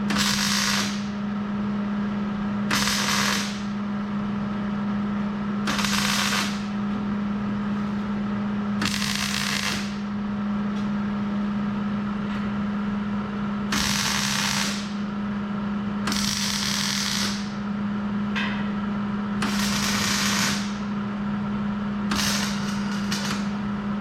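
Hobart welder tack-welding a steel frame upright: about nine short bursts of crackling, sizzling arc, each under two seconds, with pauses between. A steady low hum runs underneath.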